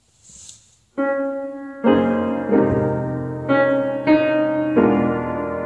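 Piano playing slow, sustained chords, a new chord struck every half second to a second and each left to ring and fade; a brief soft noise comes just before the first chord.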